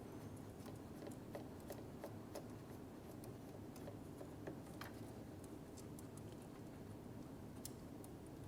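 Faint, scattered light clicks of a 7 mm socket and ratchet taking out the bolt that holds the ignition coil on the intake, over a steady low hum.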